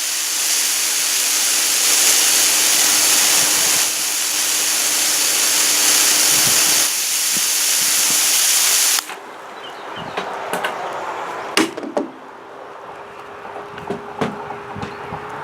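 Water hissing from a garden hose spray onto a potted petunia, steady, then cutting off suddenly about nine seconds in. After that, a faint steady hum with a few sharp clicks and knocks.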